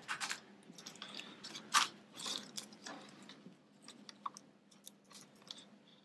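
Faint handling noises: scattered small clicks, scrapes and rustles as a laptop charger's cable is handled and its plug pushed into the laptop's power jack, with one sharper click a little under two seconds in.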